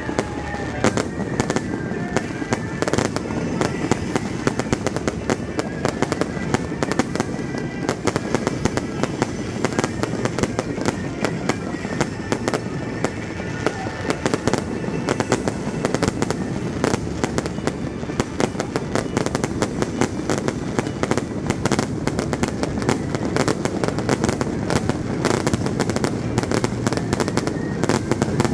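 Aerial fireworks bursting in a dense, unbroken run of rapid pops, cracks and bangs.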